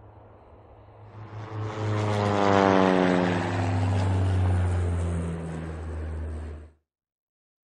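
A low hum, joined about a second in by a louder engine-like drone whose pitch falls steadily over several seconds. It cuts off suddenly near the end, leaving silence.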